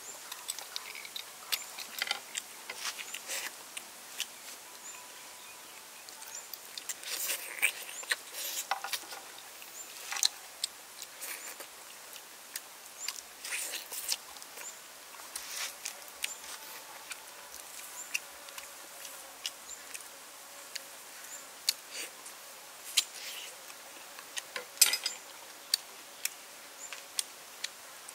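A person eating noodles close to the microphone: chewing, slurping and wet lip smacks heard as many short, irregular clicks, with a few longer slurps and occasional clicks of a spoon and chopsticks against the pot.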